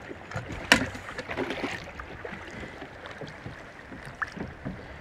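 Water splashing and lapping against the side of a small boat, with scattered small knocks and one sharp click about three-quarters of a second in.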